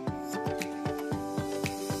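Background music: an instrumental track with a steady beat and held notes.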